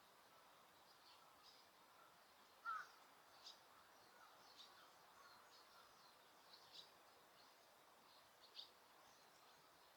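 Wild birds calling faintly: scattered short high chirps, with one louder, lower call about a quarter of the way in, over a steady background hiss.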